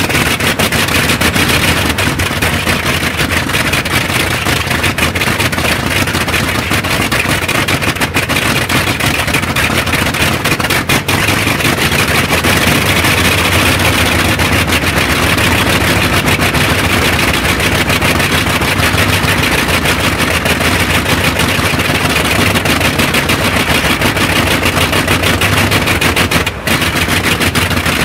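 Supercharged 14-cylinder Bristol Hercules sleeve-valve radial aircraft engine running on a test stand with its propeller turning: a loud, steady run with rapid, crackling exhaust pulses.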